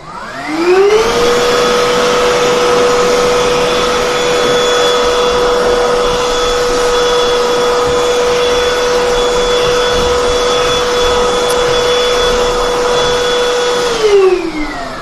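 BLACK+DECKER 20V Max cordless handheld pivot vacuum switched on to pick up dirt and dog hair. Its motor whine rises in pitch over the first second, runs steadily with a rush of air, then falls away as it is switched off about a second before the end.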